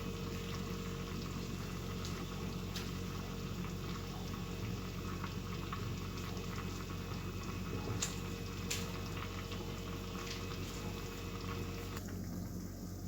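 Steady hissing noise over a low hum, with a few faint clicks; the faint higher tone in it stops about twelve seconds in.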